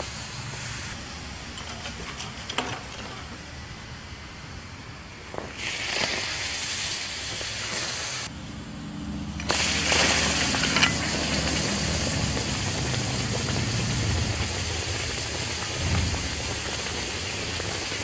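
Hot stones hissing and sizzling in water inside a plastic bag: stone boiling, the rocks' heat turning water to steam. The hiss grows about five seconds in, drops out briefly, then runs steady and louder through the rest. A few sharp knocks come early on.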